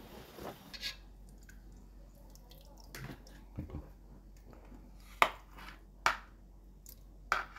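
Metal tongs lifting boiled pork belly out of a pot of broth, broth dripping back into the pot. Three sharp clicks in the second half as the tongs knock against the pot and dish.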